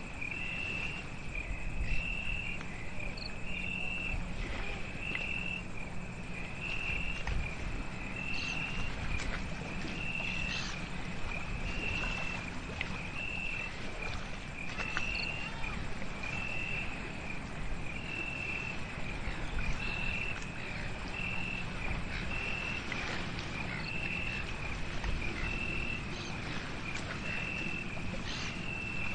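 Night-time insect calls: a short high chirp repeated steadily about once a second, with fainter scattered ticks and a steady low rumble underneath.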